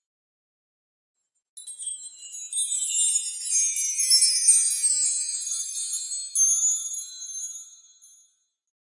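High tinkling chimes, many bell-like tones ringing together, swelling in about a second and a half in, then fading away shortly before the end.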